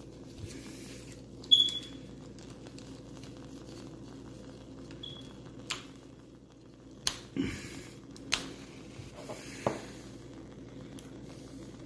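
A sharp click about a second and a half in as the candle is lit, then single pops and ticks every second or so: the wooden wick of a WoodWick candle crackling as it burns. A dull knock comes midway.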